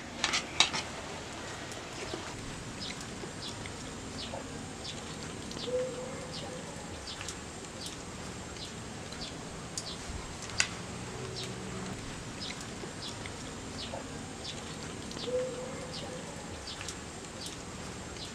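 Metal spoon clicking and scraping on a plate during a meal, loudest at the start and once about ten seconds in. Behind it birds chirp repeatedly in short high notes, with two brief lower calls about six and fifteen seconds in.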